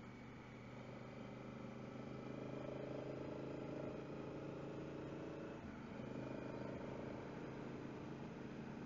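Honda Africa Twin's parallel-twin engine running under way, heard from the rider's helmet headset camera. The engine note swells slightly early on, dips briefly a little past halfway and then picks up again.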